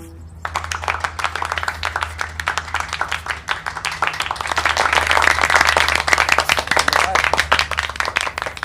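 Applause: many hands clapping densely, swelling to its loudest about halfway through and then easing off, over a steady low hum.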